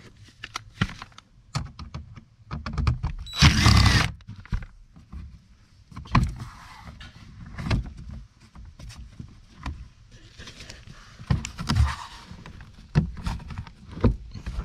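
A cordless drill-driver runs for about a second, a few seconds in, and is the loudest sound here. Around it come repeated clicks and knocks of plastic dash trim and clips being handled and pried loose.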